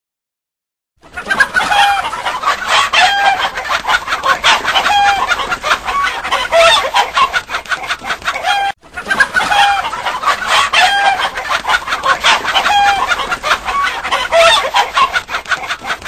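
A flock of chickens clucking, many short clucks and brief calls packed together. It starts about a second in, breaks off for an instant about halfway and plays the same stretch over again.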